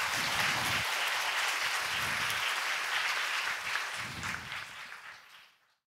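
Large audience applauding steadily, fading out near the end and then cut to silence.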